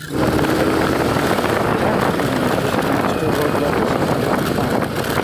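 Motorcycle engine running steadily while riding, under loud wind rush on the microphone. The sound cuts in suddenly at the start.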